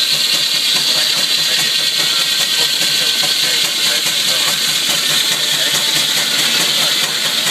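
Vintage steam engine driving a saw bench, running with a loud, steady hiss of steam.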